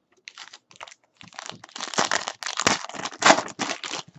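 Foil wrapper of a basketball trading card pack being torn open and crinkled by hand. Dense crackling rustles begin about a second in and carry on almost to the end.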